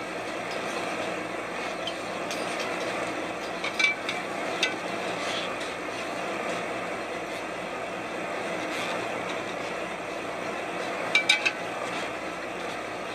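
A purse seiner's engine and deck machinery running steadily, with two short clusters of sharp clinks that ring briefly, about four seconds in and again near the end.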